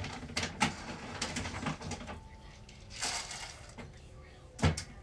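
Handling noises: a few sharp clicks and knocks, a short hissing rustle about three seconds in, and a heavier thump near the end as something is set down or bumped.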